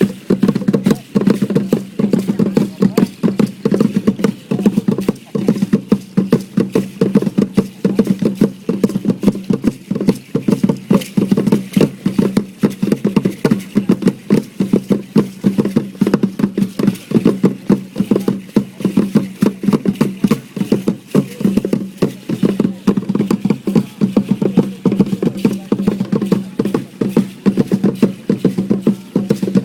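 Drum beaten in a fast, steady rhythm to accompany a pre-Hispanic dance, the strikes coming several times a second without a break.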